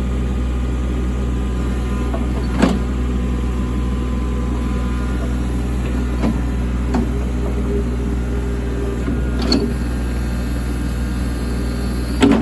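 Kubota U27-4 mini excavator's diesel engine running steadily. A few short metallic knocks from the machine break in, the loudest about two and a half seconds in and near the end.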